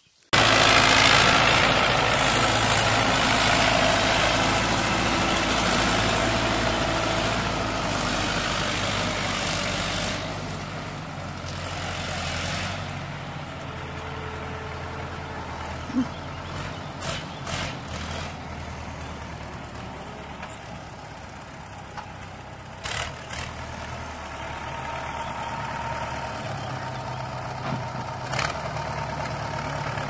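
Belarus MTZ-50 tractor's four-cylinder diesel engine running steadily. It cuts in suddenly just after the start and is loud and close at first, then grows fainter from about ten seconds in as the tractor pulls the plough away. A few short sharp clicks are heard in the second half.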